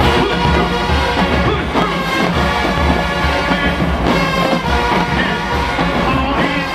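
Marching band playing loudly, with massed brass over a bass-drum beat.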